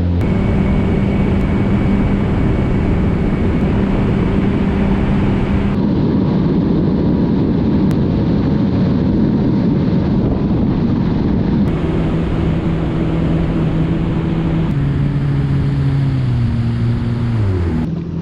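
Yamaha WaveRunner personal watercraft engine running at speed, with the rush of water and wind. Its pitch rises at the start, holds steady, then steps down and falls near the end as the throttle comes off.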